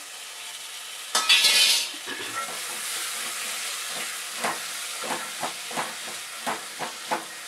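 Washed green peas tipped into hot masala in a metal pot, setting off a loud burst of sizzling about a second in that settles to a steady frying hiss. From about halfway, a wooden spatula stirring the peas scrapes and knocks against the pot two or three times a second.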